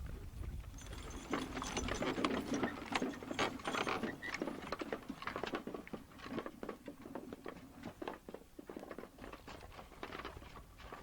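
Dense, irregular clatter of many hooves and harness from an eight-horse Shire hitch on the move, louder in the first half.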